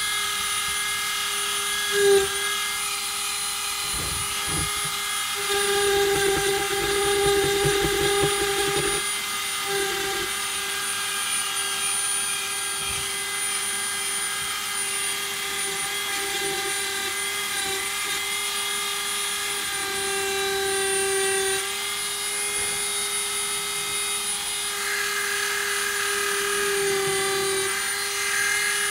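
Dremel rotary tool running with a steady high whine, its engraving bit grinding into weathered wood, with a louder, rougher stretch of cutting a few seconds in.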